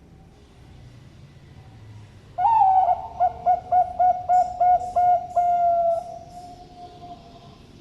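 Bangkok-strain zebra dove (perkutut) singing one coo phrase: an opening note, a quick run of about eight clipped coos, then a long held final coo that fades away.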